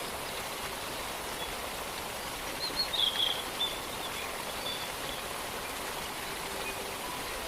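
Steady rushing of a distant waterfall, with a brief flurry of high bird chirps about three seconds in.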